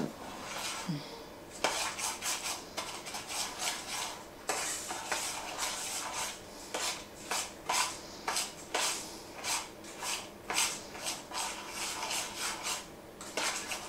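Metal spoon stirring buttered digestive-biscuit crumbs in a metal cake tin, scraping and clinking against the tin in repeated quick strokes.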